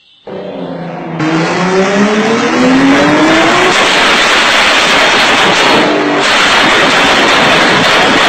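Alarm tone made from a car engine recording: the engine revs up, rising in pitch over the first few seconds, then runs loud and high on the rev limiter as the fuel injection cuts.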